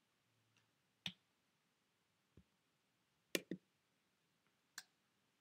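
Near silence broken by a few sharp clicks and taps of objects handled on a tabletop: one about a second in, a close double click at about three and a half seconds, and another near the end.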